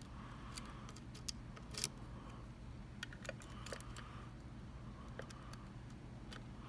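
Faint metallic clicks and scraping of lock-picking tools working the pins of a Mul-T-Lock MT5 cylinder: scattered sharp ticks, the loudest a little under two seconds in, between short scratchy rubs.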